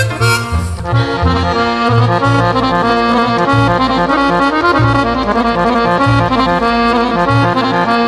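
Background music: an instrumental tune with sustained melody notes over a moving bass line.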